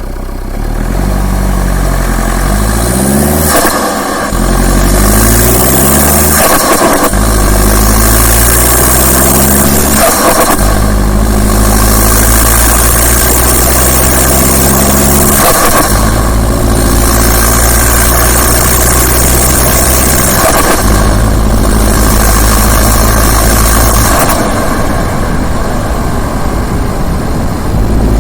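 Turbocharged diesel engine's intake and turbo sound: revs climb in the first few seconds, then hold steady in long stretches that change abruptly every four or five seconds, with a hiss at each change.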